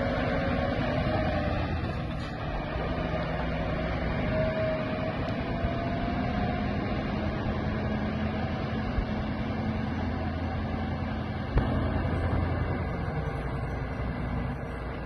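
Heavy truck engine running steadily with road noise and a faint wavering whine as it pulls a string of loaded trailers. There is one sharp knock about two-thirds of the way in.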